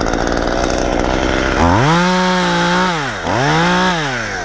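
Two-stroke chainsaw idling, then throttled up to high speed twice, each time holding for about a second before dropping back.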